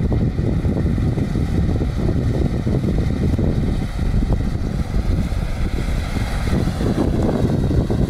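Claas combine harvester running as it cuts and threshes soybeans, a steady machine drone with a faint high whine, mixed with fluttering wind rumble on the microphone.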